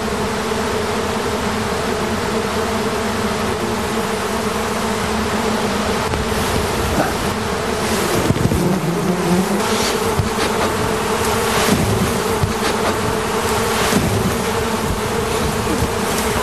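A swarm of honeybees buzzing: many wings together in one dense, steady drone.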